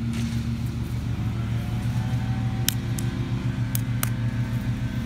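Steady low drone of a motor vehicle's engine running at idle, the loudest sound throughout. A few sharp claps come in the second half.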